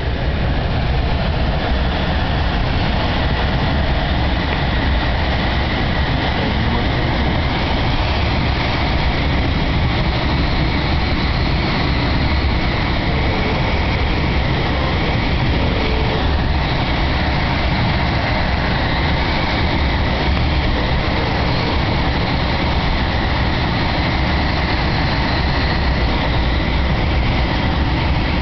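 Steady rush of air streaming past a glider's canopy in flight, heard from inside the cockpit as a loud, even rumbling hiss.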